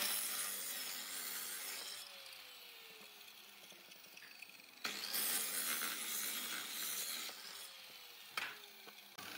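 Electric miter saw motor coasting down after a cut, its whine falling in pitch as it fades. About five seconds in the saw is run again briefly and winds down a second time, with a short knock near the end.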